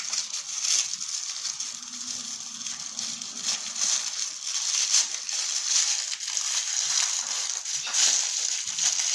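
Plastic packaging of a LOL Surprise toy being torn open and crinkled by hand: continuous dense crackling and rustling.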